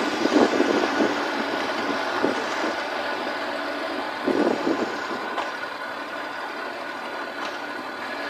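Kei truck driving on a paved road, heard close beside the rear wheel: a steady rush of tyre and road noise mixed with the engine, with a few knocks and a cluster of them about four to five seconds in.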